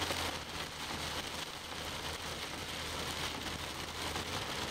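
Heavy rain pelting a vehicle, heard from inside the cabin, over a steady low drone of the engine and road.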